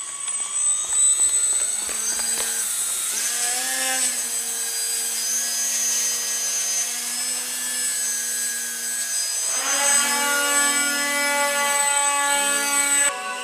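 Electric motor and propeller of an indoor aerobatic model airplane, whining as the throttle is worked. The pitch climbs and wavers over the first few seconds, holds fairly steady while the plane hangs nose-up on its propeller, then shifts up and down again near the end.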